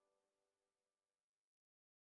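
Silence: the sound track is blank.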